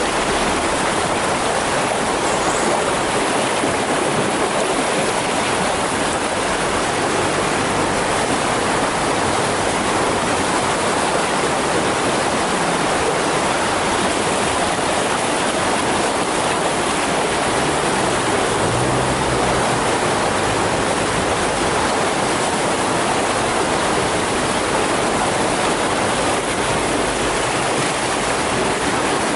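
Tidal rapids: seawater rushing through a narrow inlet and breaking into white water, a loud, steady, unbroken rush.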